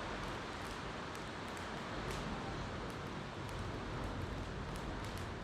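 Campfire crackling with frequent small sharp pops, over a steady wash of ocean waves.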